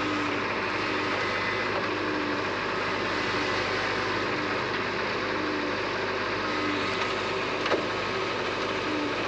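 Tata Hitachi crawler excavator's diesel engine running steadily with its hydraulics under load as it unloads from a flatbed truck, a faint tone coming and going about once a second. A single sharp knock about three-quarters of the way through.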